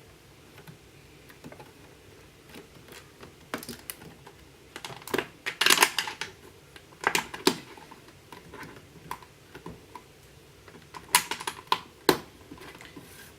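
Plastic Lego pieces clicking and clattering as they are pressed onto a baseplate grid, in scattered sharp clicks with louder clusters around the middle and near the end.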